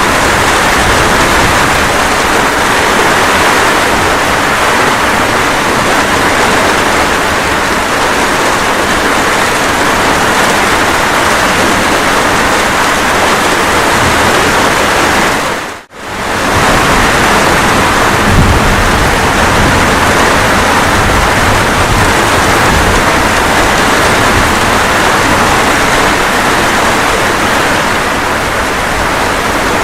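Steady, dense rain falling. A little past halfway the sound dips to near silence for under a second and comes back, and a low rumble of thunder follows shortly after.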